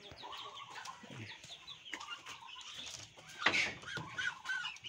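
Poultry calling: a scattered run of short high chirps and clucks, loudest about three and a half seconds in.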